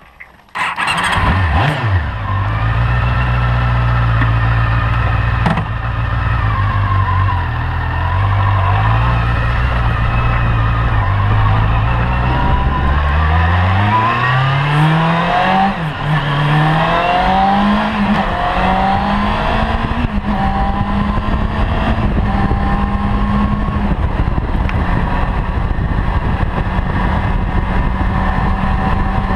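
Honda CB-1's 400 cc inline-four motorcycle engine heard from the handlebars while riding. It runs at a low, fairly steady pace for the first dozen seconds. It then accelerates, its pitch climbing and dropping back several times as it shifts up through the gears, and holds a steady cruise for the last several seconds.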